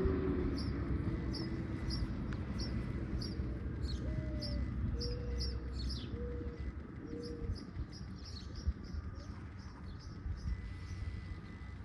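Birds chirping, with many short high notes repeating through the whole stretch, and four short low hooting notes from about four to seven seconds in. A low rumble sits underneath and fades over the first few seconds.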